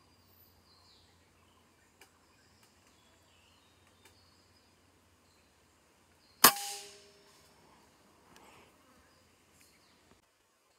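A single shot from a PCP air rifle about six and a half seconds in: a sharp crack with a short ringing tail.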